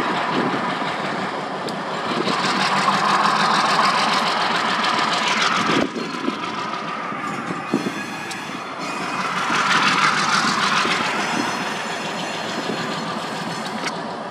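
Freight train shoved by an SW1500 switcher moving past: railcar wheels rolling on the rails, the noise swelling twice, with a few sharp clanks.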